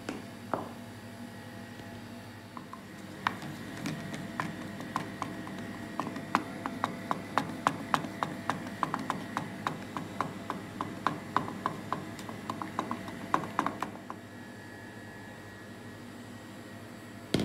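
Wooden spatula vigorously stirring a thick, wet toothpaste slime mixture in a small stainless steel bowl, clacking against the bowl's side about three times a second over a soft sloshing; the stirring stops near the end.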